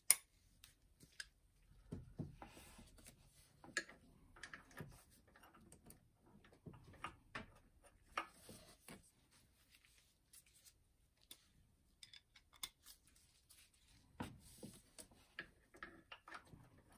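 Faint, scattered clicks, taps and scrapes of hand tools against metal parts as a mechanic works at loosening the power steering pump pulley.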